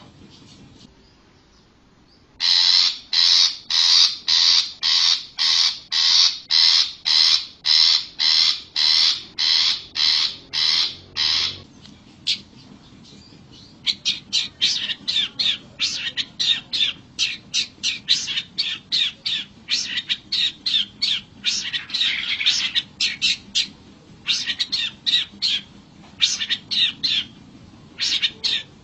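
Long-tailed shrike giving harsh calls. A steady run of about two calls a second starts a couple of seconds in and lasts some nine seconds. After a short pause comes a faster, choppier series of shorter harsh notes, broken by brief gaps.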